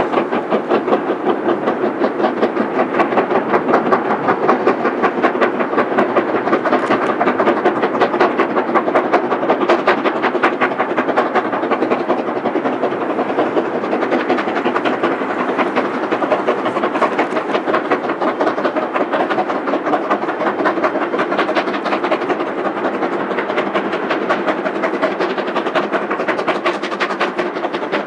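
Two QJ-class steam locomotives pulling a heavy freight uphill, their exhausts beating hard in a rapid, steady rhythm as they work the grade.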